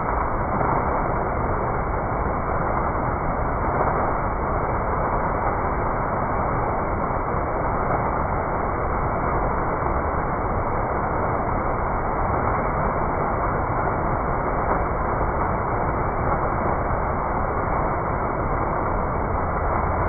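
Water fountain's vertical jet splashing down into its basin: a steady rush of falling water.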